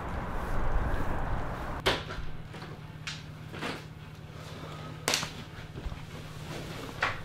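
Street background noise gives way to a quiet room with a steady low hum. Against it come several sharp knocks and thuds, the loudest about five seconds in: a door and movement sounds as someone comes into the room.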